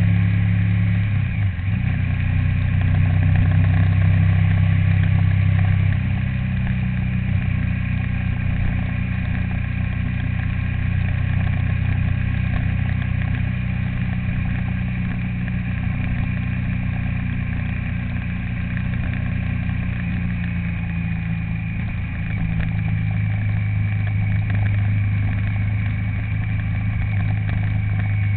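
A vehicle's engine running steadily while under way. Its pitch dips briefly about a second and a half in and settles a little lower around six seconds in.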